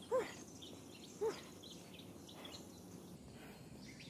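Birds calling in the open air: two short rise-and-fall calls about a second apart near the start, then scattered faint chirps over a steady low background hum.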